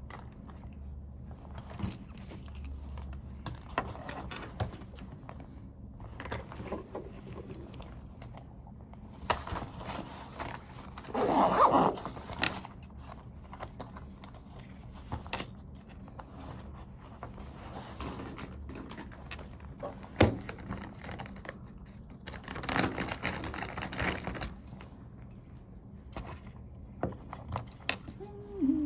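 Irregular clicks and rattling of small hard objects being handled, with louder clattering about eleven seconds in and again around twenty-three seconds.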